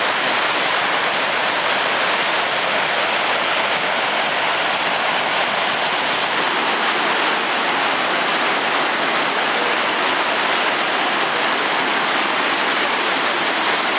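Loud, steady rush of the Briksdal waterfall, a heavy torrent of glacial meltwater pouring down the rocks.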